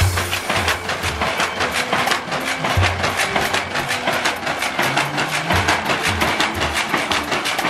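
Wooden weaving machine running, its mechanism clattering in a rapid, even run of wooden clacks, several a second, with background music over it.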